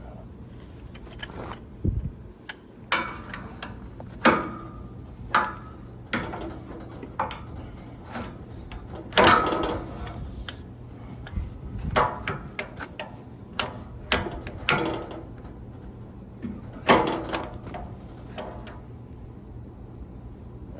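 Irregular metallic knocks and clanks, about twenty of them with short ringing, loudest around the middle and near the end, as a bar is worked against a scissor lift's hydraulic cylinder to pull out its rod, which is stuck and won't come out.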